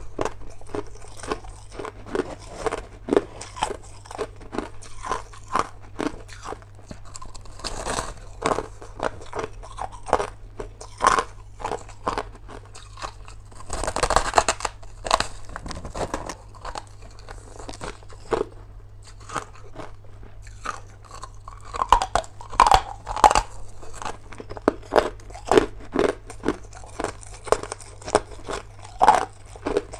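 Crushed ice bitten off a hand-held packed block and chewed in the mouth: a continual run of sharp, irregular crunches, with louder clusters of bites about 8, 14 and 22 seconds in.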